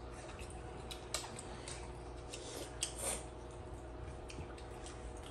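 Eating sounds from people eating with their hands: scattered crisp crunches and mouth clicks from chewing raw vegetables and rice. There is a sharper crunch about a second in and another just before three seconds.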